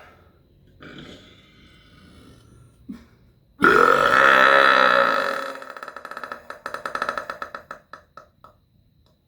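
A long, loud voluntary burp about three and a half seconds in, strongest for its first second and a half, then trailing off into a rattling, croaky tail over the next three seconds.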